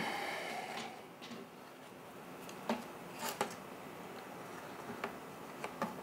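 A few faint clicks and knocks of hard plastic blower parts being handled and set against each other on a wooden workbench.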